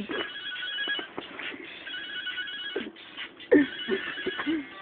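A telephone ringing: three bursts of a rapid trilling ring, each under a second long and about a second apart.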